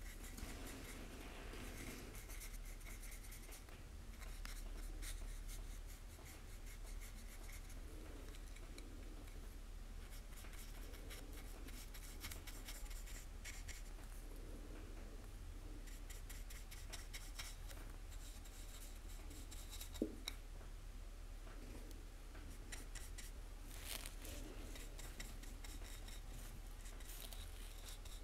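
Faint scratchy rubbing of a small paintbrush working paint onto a 3D-printed plastic badge, with light handling of the badge. A steady low hum underneath, and a single sharp click about twenty seconds in.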